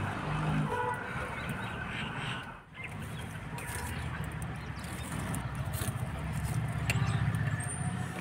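Wood fire burning in a clay chulha, with scattered sharp crackles over a steady low rumble.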